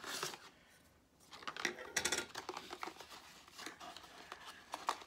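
Hands opening a small box and its packaging: scattered clicks, scrapes and rustles, with a denser crinkling burst about two seconds in.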